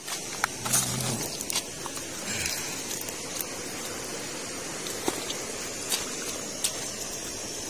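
Steady rushing of a shallow river flowing over rocks, with a few scattered light clicks.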